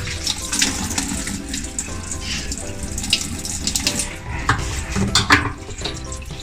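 Water running and splashing from a hose into the tub of a switched-off LG Smart Drum washing machine, a test of whether the machine keeps draining with no power. It does, which points to a possible fault in the mechanical drain valve.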